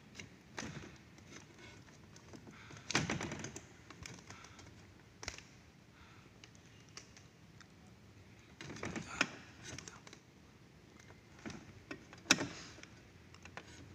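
Clicks and rattles of wiring and plastic connectors being handled and pulled in an air-conditioner ceiling cassette's electrical box, in a few short bursts with one sharp click near the end.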